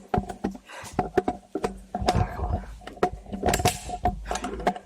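Irregular sharp clicks and knocks from indoor airsoft play: gunshots, BB impacts and gear clatter, with a faint steady hum underneath.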